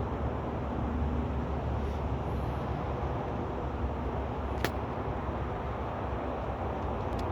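Steady low rumbling background noise with one sharp click about four and a half seconds in.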